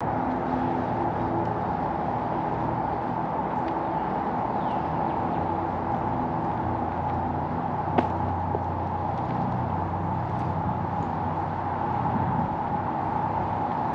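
Steady city street noise, mostly road traffic, with a single sharp click about eight seconds in.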